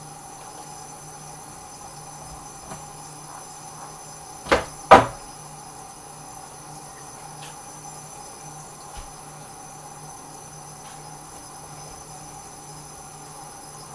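Two sharp knocks about half a second apart, like cookware or a cabinet door being handled in a kitchen, over a steady low hum.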